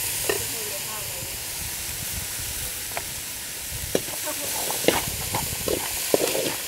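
Tomato, onion and green-chile sauce sizzling in a skillet with a steady hiss. From about three seconds in there are a few short clicks and scrapes.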